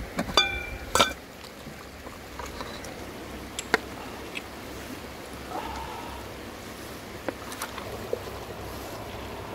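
A metal pot lid clanks with a short ring as it is lifted off the pot, with a second sharp clack just after. Then scattered light taps and scrapes of a wooden spatula against the metal pot as fish and king oyster mushroom pieces are stirred, over a steady background hiss.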